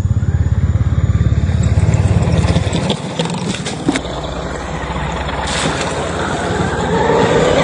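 1/10-scale 4WD RC car driving over rough ground: a steady, fast-pulsing rumble with a few sharp knocks a little over three seconds in.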